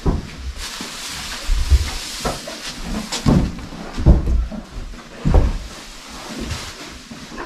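Several irregular knocks and thuds, with a rustling hiss between them, most of it in the first few seconds.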